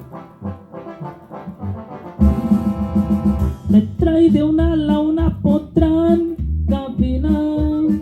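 Mexican song with brass and guitar: a soft instrumental intro, a loud brass chord held for about a second and a half starting about two seconds in, then a voice singing from about four seconds in.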